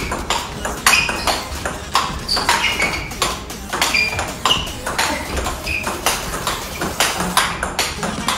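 A large-ball table tennis rally: the light plastic ball is struck back and forth, giving a run of quick, sharp clicks about two a second, each with a short high ping, as it hits the paddles and bounces on the table.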